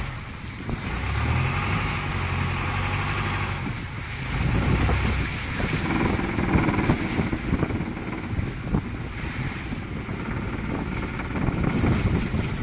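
Longtail boat's engine running with a steady low hum, while wind on the microphone and water rushing along the hull take over from about four seconds in.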